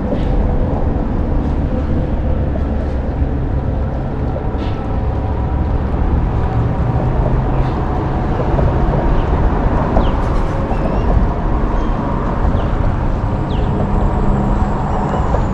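Strong wind buffeting the microphone, a steady heavy low rumble with no break.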